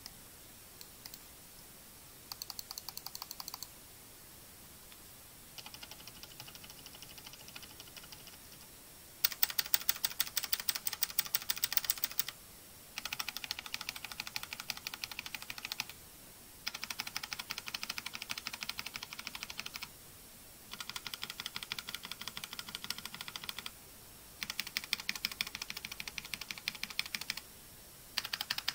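Fast typing on a Redragon CASTOR K631 PRO hot-swappable mechanical keyboard, in a run of bursts a few seconds long with short pauses between. Each burst is a different switch: Redragon Bullet-QT A113, then Outemu blue, red, brown and black, Hippo, and Penguin starting near the end. The Outemu blue burst is the loudest and sharpest, the clicky switch of the set.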